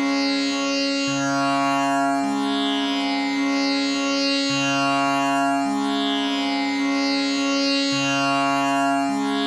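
Tanpura drone tuned to C sharp, its strings plucked in a steady repeating cycle about every three and a half seconds, each pluck ringing on into the next so the sound never breaks.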